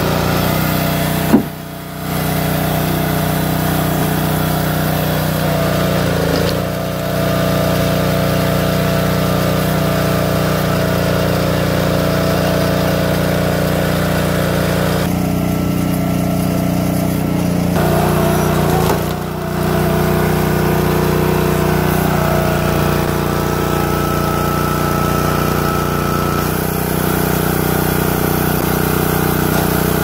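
Small gas engine of an Ariens 22-ton log splitter running steadily at a constant speed, with a single sharp knock about a second and a half in.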